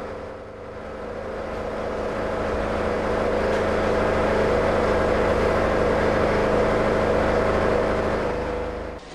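A steady drone of several held tones, swelling over the first few seconds and cutting off abruptly near the end.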